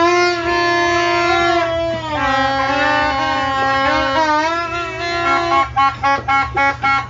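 Horns blown in long held notes that bend up and down in pitch, with two pitches sounding together. About five and a half seconds in they switch to a quick run of short blasts, about three a second.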